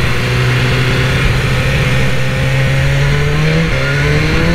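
BMW S1000R inline-four engine pulling under throttle, its pitch rising slowly, then dropping for an upshift about three and a half seconds in before climbing again. Wind noise rushes over the onboard microphone throughout.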